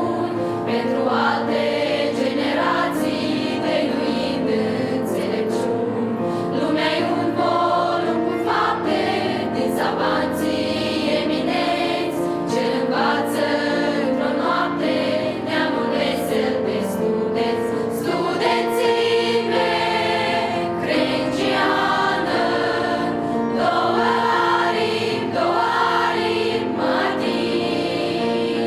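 A women's choir singing, sustained notes moving from chord to chord.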